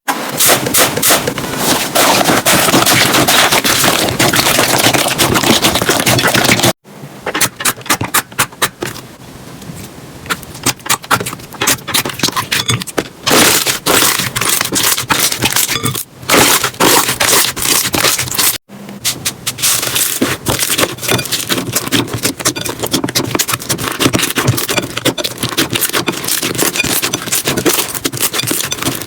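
Slime being squished and pressed by hand, giving a dense run of crackling clicks and pops. It comes as three clips with abrupt cuts between them, about a quarter and two thirds of the way through; the middle clip is quieter.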